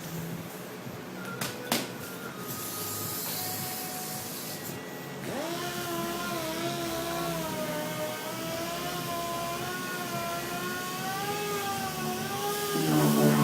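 A Mirka dual-action sander spins up about five seconds in and runs with a steady, slightly wavering whine as it sands clearcoat on a car body. A couple of sharp knocks come in the first two seconds.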